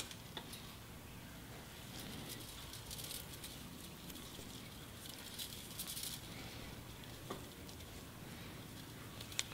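Faint rustling of juniper foliage and bonsai wire being handled as the wire is wrapped around a branch, with a few light clicks.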